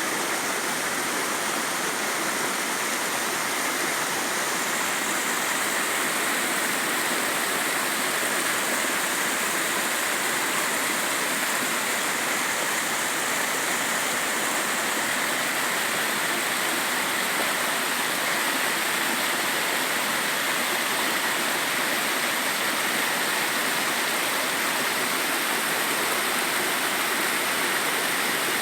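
A mountain stream rushing over rocks: a steady, even rush of water.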